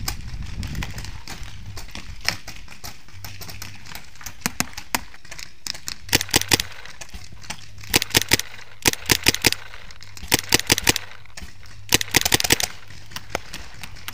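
Paintball markers firing: a few scattered single pops, then from about six seconds in, five quick bursts of four to six sharp pops each.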